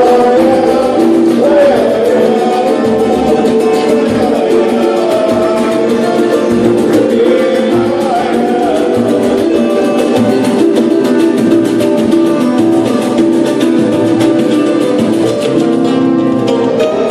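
Live samba band playing: voices singing over plucked strings and a steady percussion beat.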